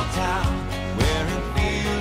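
Background music: a country-style song with guitar over a steady beat.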